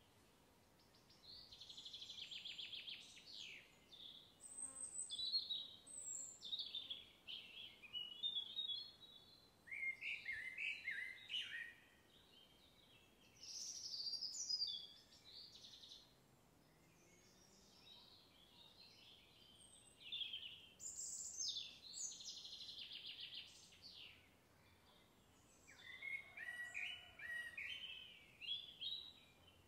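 Songbirds singing: a series of short, high-pitched song phrases, each a second or two long, made of rapid trills and stepwise falling notes with brief pauses between them.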